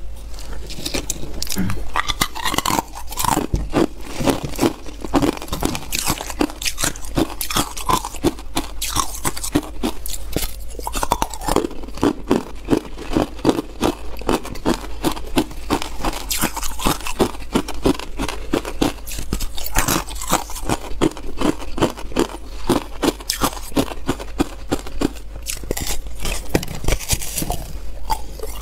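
Hard ice cubes being bitten and chewed close to the microphone: a dense, continuous run of sharp cracks and crunches.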